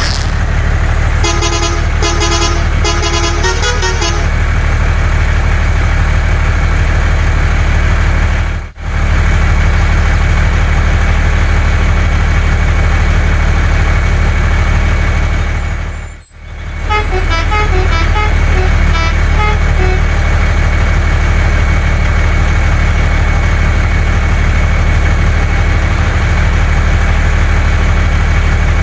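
Truck engine running steadily, with a few short horn honks about a second in and a run of changing horn notes a little past halfway. The sound drops out briefly twice.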